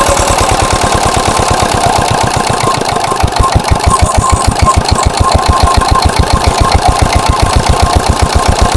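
Hand-cranked single-cylinder stationary diesel engine driving an irrigation water pump, running with an even beat of about eight firings a second. It dips briefly about three seconds in, then runs louder as the throttle is set.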